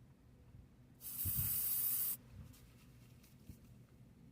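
Aerosol can of Dove whole-body deodorant spray (raspberry and rose) giving one steady hissing burst of about a second, starting about a second in.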